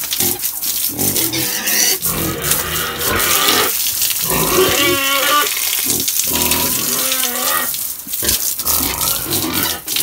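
Young pigs grunting and squealing in a pen, with a drawn-out squeal near the middle, over the steady hiss and splash of water sprayed onto them and the concrete floor.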